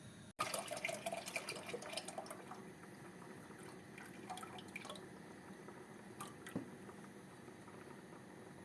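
Water dripping and splashing in a kitchen: a dense patter of small drops that starts abruptly after a brief dropout, then thins to scattered drips.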